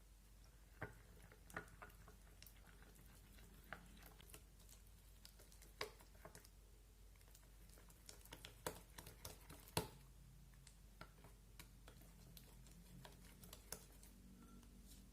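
Slime being squeezed and worked by hand, making scattered soft clicks and small air pops at irregular intervals. A cluster of them comes a little past the middle, and the loudest pop about ten seconds in.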